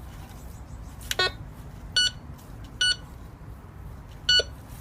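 Maplin Prestige Advanced metal detector sounding four short, high beeps at uneven intervals as its coil is swept over a 2p coin buried about six inches deep: its target signal, which it reads as copper and silver.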